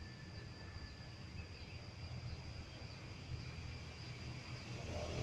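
Steady insect drone outdoors: a thin, high, unbroken whine with a fainter lower one, over a low rumble that grows louder near the end.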